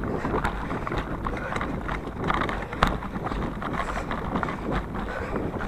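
Bike rolling over a bumpy mud and wood-chip trail: tyre noise with frequent irregular rattles and knocks from the bike.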